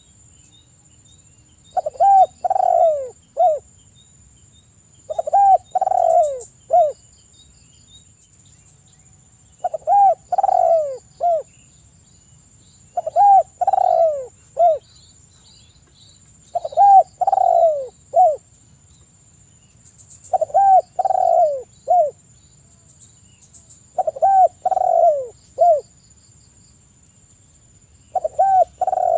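Spotted dove cooing: a short phrase of three or four low notes, repeated about every three and a half seconds, eight times.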